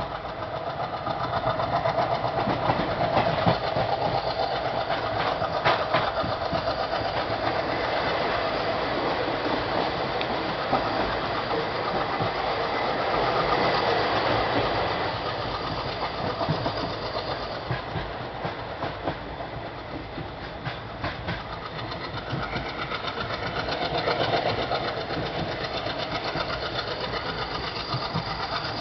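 WDM3A diesel-electric locomotive's ALCO 16-cylinder engine chugging under load as it pulls a passenger train away, mixed with wheels clattering over the rail joints. The sound swells and eases a few times.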